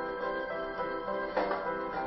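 Background music with instruments playing a repeating pattern of held notes.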